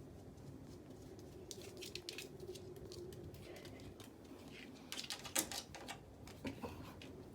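Faint, irregular clicks and taps, getting busier in the second half, over a low steady hum.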